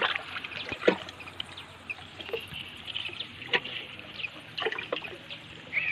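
Short bird chirps come and go over a steady outdoor background. A few sharp clicks and knocks come from the hands unhooking a small fish.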